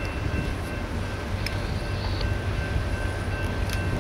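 Low steady rumble of an approaching CSX freight train's diesel locomotives in the distance, with a faint steady high-pitched whine above it.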